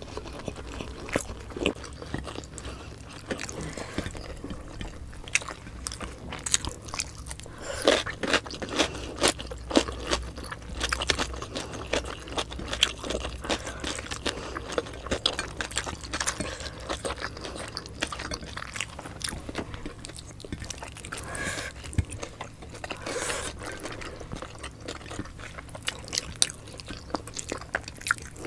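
Close-miked chewing and biting of fatty pork adobo and rice eaten by hand, with many short mouth clicks and crunches scattered throughout over a faint low room hum.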